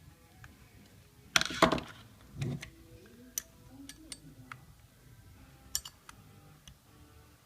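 Metal tools and small parts clinking and clattering during hub assembly work: a loud rattle of clinks about one and a half seconds in, a duller knock just after, then a few scattered single clicks.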